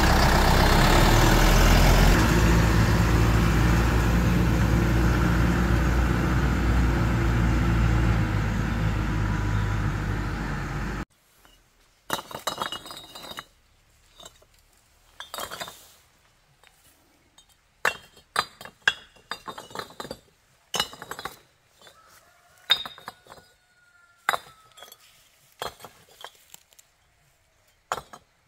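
A vehicle engine running loudly and steadily, cutting off suddenly about eleven seconds in. After that come scattered sharp clinks and knocks of hard objects being set down one at a time.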